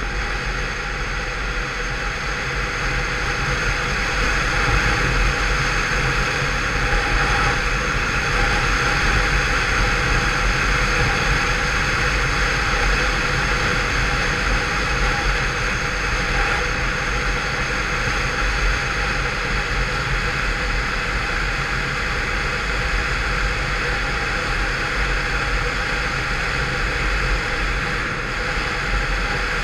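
Derestricted Peugeot Vivacity 50cc scooter engine running steadily while riding at cruising speed, with wind rushing over the camera; it picks up a little about four seconds in, then holds steady.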